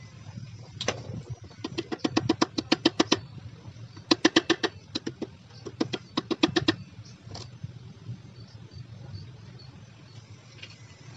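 Rapid metallic clicking from hand work on a Yamaha Mio Z scooter's open engine crankcase during reassembly. It comes in several bursts of about seven or eight clicks a second, with a long run near the start and shorter runs after, like a ratchet or a part being turned against a pawl.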